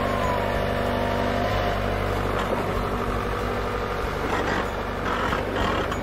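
Dump truck engine running steadily.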